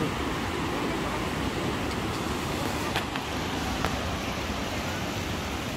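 Steady rumbling wash of surf breaking on the beach, mixed with wind, with two faint clicks near the middle.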